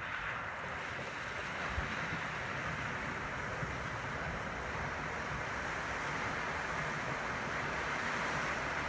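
Steady rush of flowing river water, with low wind buffeting on the microphone now and then.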